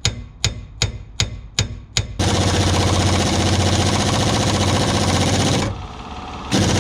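Impact wrench hammering on a seized, rusted nut that will not come undone, in a long burst that starts about two seconds in and stops near six seconds, then starts again near the end. Before it, a run of sharp, evenly spaced clicks, about two and a half a second.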